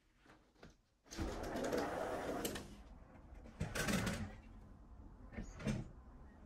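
A glass balcony door being worked open: a sudden burst of rushing noise about a second in, then two shorter knocks and scrapes.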